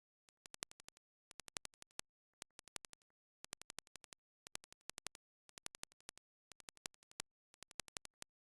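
Faint rhythmic clicking: quick clusters of five to seven sharp clicks, one cluster about every second.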